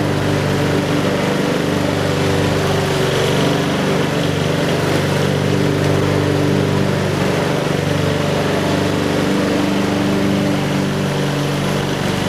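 Brill Hattrick rotary lawn mower's Briggs & Stratton Quantum single-cylinder four-stroke petrol engine running steadily under load while mowing grass.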